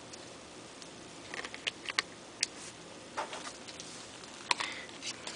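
Small plastic clicks and taps as the battery and battery cover of a Toshiba Portege G910 phone are fitted by hand, an irregular string of them starting about a second in.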